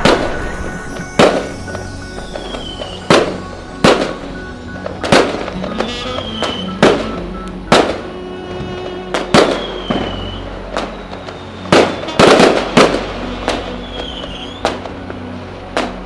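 Fireworks going off: about fifteen sharp bangs at irregular intervals, roughly one a second, with a quick cluster of several bangs about twelve seconds in.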